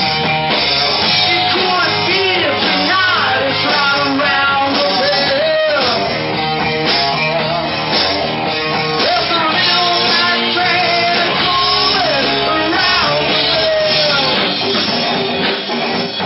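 A live rock band plays loudly: electric guitars, bass guitar and drums, with a man singing lead.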